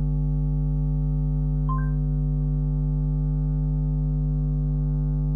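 Steady electrical mains hum with a buzzy stack of overtones, unchanged throughout. A short electronic beep from the phone's Google voice search sounds about two seconds in.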